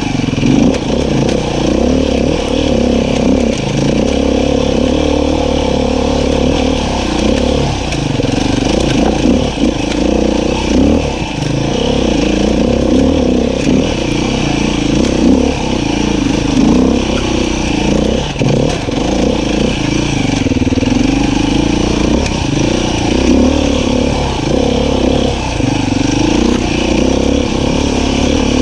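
Beta 500 RR-S single-cylinder four-stroke dirt bike engine running steadily on trail, its pitch wavering up and down as the throttle is worked.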